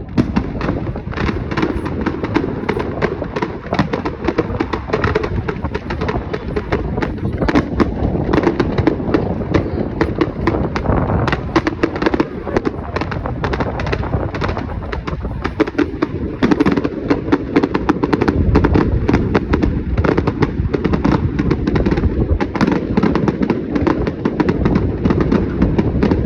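Fireworks going off in a dense, continuous barrage of bangs and crackles, with no break between the shots.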